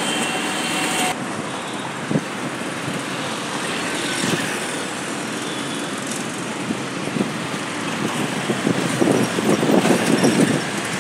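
Passenger train running on the rails below, a steady rumble with a few single knocks. About nine seconds in it swells into a run of loud clatter as the last coach goes by.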